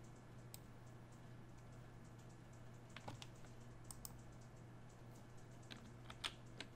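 Faint computer clicks, about half a dozen at irregular intervals, over a steady low hum.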